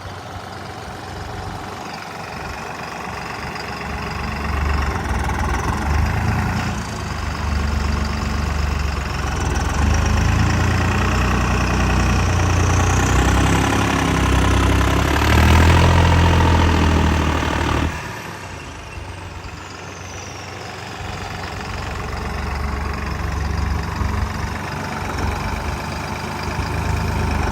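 Farm tractor's diesel engine working under load as the tractor drives up a sandy slope. The engine note builds up, is loudest a little past halfway, drops off suddenly, then builds again near the end.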